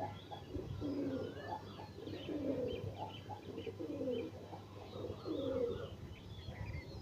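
A dove cooing over and over, a low phrase about once a second. Small birds chirp and twitter at a higher pitch around it.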